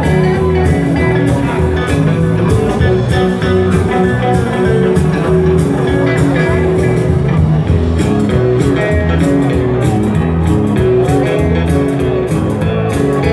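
Live band playing an upbeat dance number: electric guitars and bass over a steady drum beat of about two hits a second, amplified through the hall's PA.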